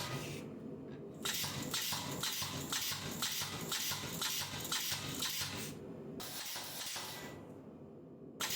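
Hammer blows on hot steel at the anvil while forging knife blades, about three strokes a second, with two brief pauses.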